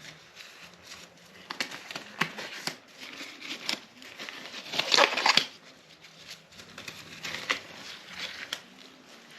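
Gloves being pulled on by hand: irregular rustling and crinkling with scattered sharp clicks, loudest about five seconds in.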